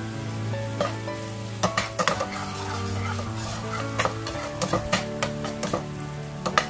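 Food sizzling in a pan while being stirred, the utensil clicking and scraping against the pan several times, over soft background music with held notes.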